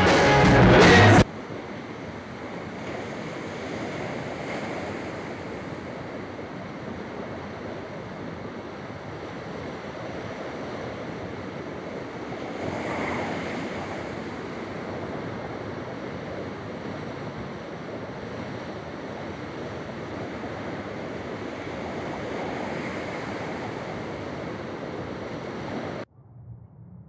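Sea surf washing in over rocks, a steady rush that swells as a bigger wave breaks roughly every nine seconds. At the very start, about a second of a loud live rock band that cuts off abruptly.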